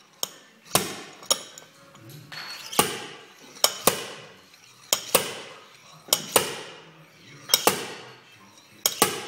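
Paintless dent repair slide hammer being worked on a glue tab stuck to a car panel: a series of sharp metal clacks as the sliding weight strikes its stop, often in quick pairs, about one pair a second.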